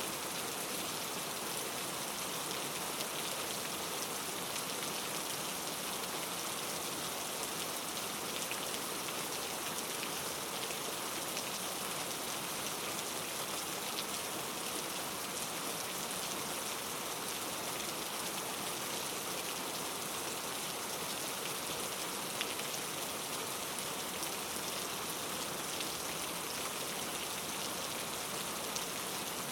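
Steady rain falling, with many fine individual drops ticking on a surface.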